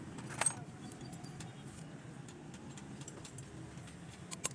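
Metal tools and parts being handled: a single sharp metallic clank about half a second in, then a quick run of light metallic clicks near the end, over a low steady background hum.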